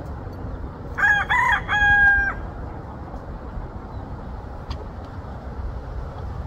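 A rooster crowing once, about a second in: a few short broken notes, then a longer held final note.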